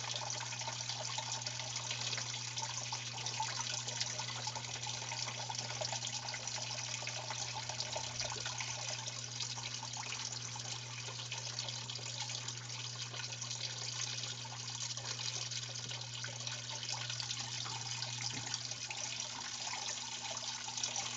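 Water pouring steadily from a plastic tube into a two-stage stackable ABS plastic sluice box and trickling through it, an unchanging flow. A steady low hum runs beneath it.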